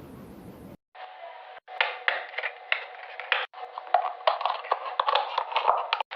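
Rapid, irregular clicks and taps of small objects being handled, starting about a second in, sounding thin and narrow-banded.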